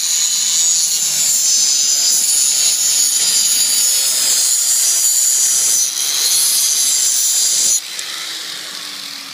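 Handheld angle grinder with an abrasive disc grinding a block of Inconel alloy: a harsh, steady grinding hiss. Near the end the disc comes off the metal, the sound drops sharply, and the motor keeps spinning with a slowly falling pitch.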